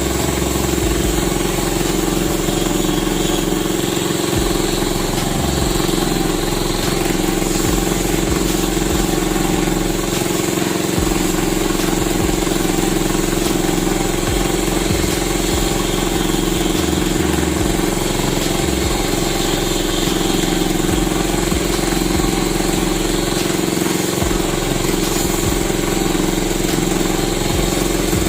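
An engine running steadily at an even speed, with a constant hum throughout.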